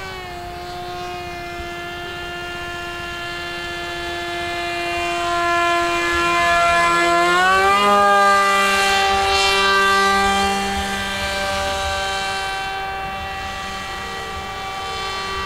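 Whine of an RC foam jet's brushless motor (T-Motor 1450kv) and 9-inch propeller in flight, a steady high tone that steps up in pitch about halfway as the throttle opens. It grows louder as the plane passes close overhead and then fades.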